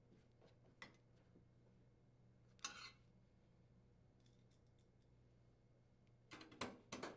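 Mostly quiet, with a few faint metallic clicks, a short scrape a little under three seconds in, and a cluster of clicks and scrapes near the end: a hand screwdriver driving screws into the sheet-metal side panel of a built-in microwave oven.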